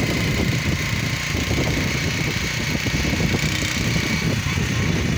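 Steady low rumble of a moving vehicle: engine and road noise, heard from on board.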